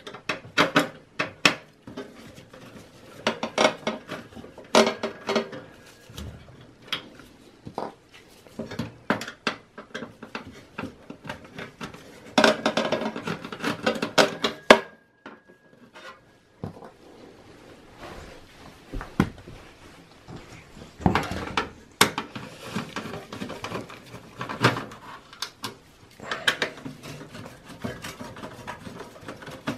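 Torx screwdriver taking motherboard screws out of a steel PC case: irregular metallic clicks, scrapes and clinks of the tool and loose screws against the chassis, with a short ringing clink about halfway through and a brief lull just after.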